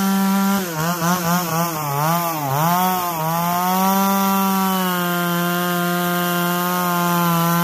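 Chainsaw running at high speed, cutting grooves into a log. In the first half its pitch dips and recovers several times as the chain bogs in the wood, then it runs steady.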